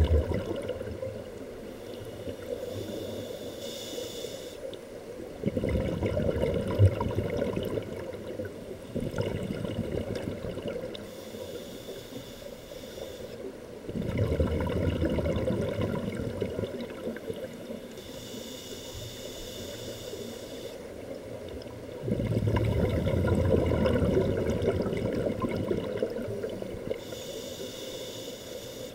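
Scuba breathing heard underwater: a hiss of inhalation through the demand regulator alternating with louder rumbling bursts of exhaled bubbles, about four breaths over the stretch.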